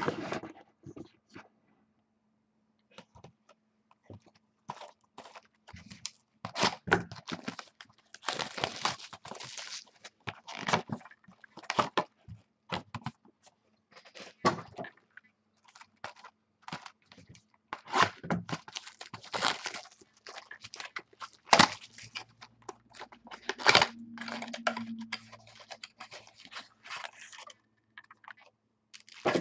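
Plastic wrapping and packs of trading cards being crinkled and torn open, with cardboard and cards handled: irregular crackles, rustles and taps.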